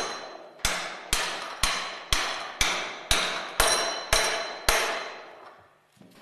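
Hammer blows on a metal driving tool set on a separator's bearing bush, tapping the bush down over the angular contact ball bearings on the spindle. Even strokes about two a second, each ringing like steel, stopping near the end with the last ring dying away.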